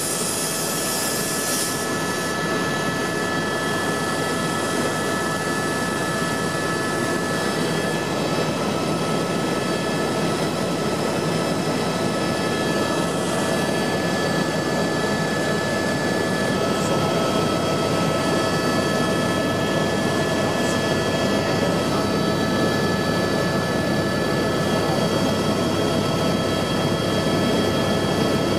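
Turbine helicopter in steady cruise flight, heard from inside the cabin: a constant rush of rotor and engine noise with a steady high turbine whine running through it.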